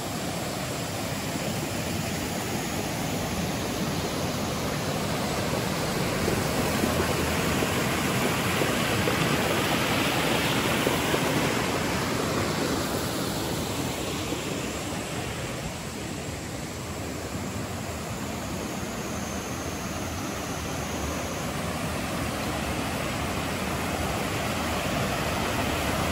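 River water rushing over rocks in a steady wash of noise, growing louder for a few seconds about a third of the way in.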